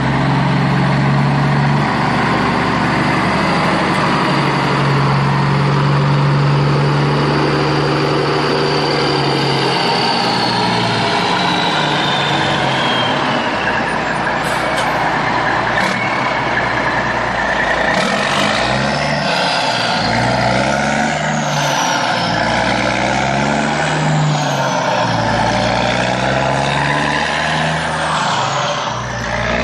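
Heavy truck engine sound running steadily, then rising and falling in pitch as it revs, with several high falling whistles in the second half.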